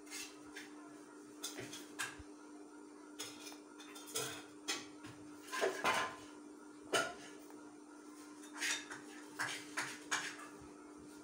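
Pencil scratching in short strokes on paper and light metallic clinks as a steel ruler is shifted and set down on it, in irregular bursts, loudest near the middle, over a steady low hum.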